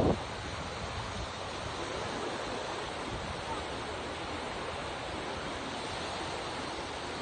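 Sea waves washing onto the shore: a steady surf hiss with no distinct breakers standing out.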